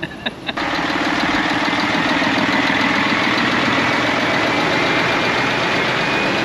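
A vehicle engine running at a steady idle, starting abruptly about half a second in.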